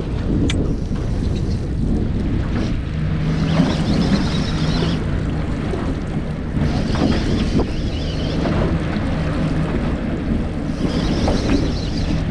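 Small boat's outboard motor running with a low hum that comes and goes, under heavy wind buffeting the microphone and water washing against the hull.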